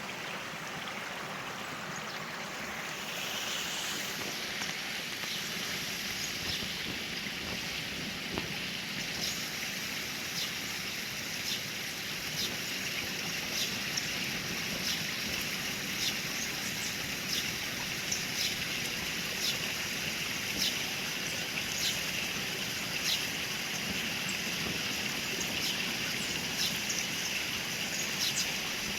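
Steady rush of cascading water from waterfalls. About a third of the way in, a bird starts repeating a short high chirp about once a second over it.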